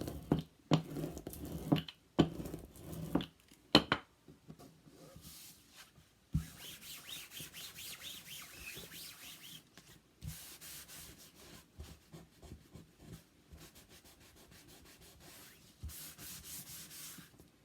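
Paper being rubbed and smoothed down by hand on a glued craft piece, in two stretches of scratchy rubbing. Several sharp knocks in the first few seconds, as of things handled on the table.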